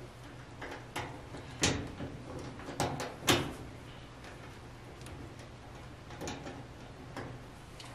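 Scattered small clicks and knocks of metal being handled at a dryer's electrical terminal block as the power-cord wires are fitted to the terminal screws. The two loudest knocks come at about one and a half and three and a half seconds in, with fainter clicks later.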